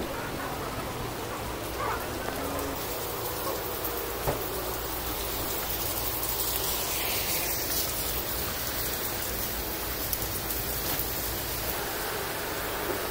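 Steady rain falling on wet pavement, an even hiss with a few light knocks.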